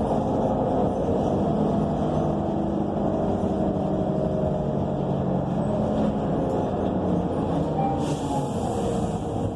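Transit bus with a Cummins Westport ISL G natural-gas engine and Allison B300R transmission, heard from inside the cabin while driving: a steady drone with engine tones slowly shifting in pitch. A brief hiss joins about eight seconds in.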